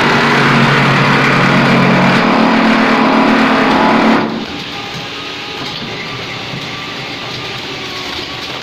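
Automatic wall-rendering machine running: a loud steady motor hum under a dense hiss, which drops abruptly to a quieter steady noise a little past four seconds in.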